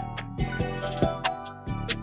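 Background music with a steady drum beat, cymbal hits and sustained instrumental tones.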